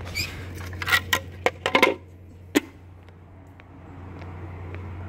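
A steady low hum, with a quick run of sharp clicks and cracks about a second in and one more click shortly after.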